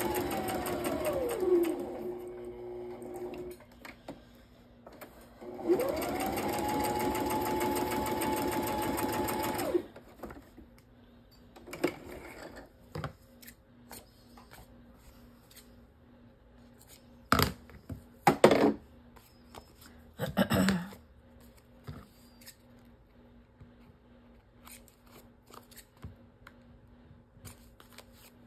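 Electric sewing machine stitching through paper in two runs, the motor whirring up to speed each time. The second run lasts about four seconds and cuts off sharply. A few sharp knocks follow.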